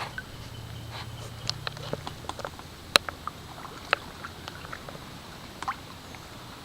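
Quiet water sounds around a small paddled boat: scattered short drips and clicks at irregular intervals over a faint low hum.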